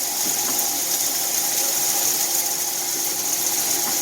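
Steady drone of grain-drying machinery running: an even hiss with a low hum under it, unchanging throughout.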